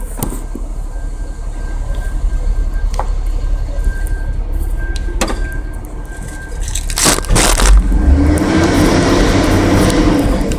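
Low rumble of a car heard from inside a stopped car, with a few sharp clicks. A dense loud noise about seven seconds in, then the vehicle sound grows louder for the last two seconds or so.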